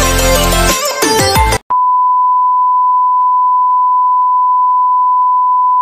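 Electronic outro music cuts off abruptly about a second and a half in, replaced by a steady, unbroken 1 kHz television test-card reference tone.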